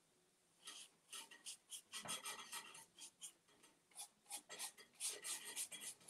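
Paintbrush bristles scratching and dabbing chalk paint onto a painted wooden table leg: a faint, quick run of short scratchy strokes, several a second, beginning under a second in.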